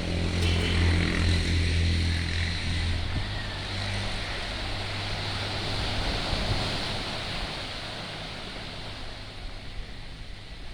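A motor vehicle's engine hum, loudest for the first three seconds and then fading as it passes, over the steady wash of surf.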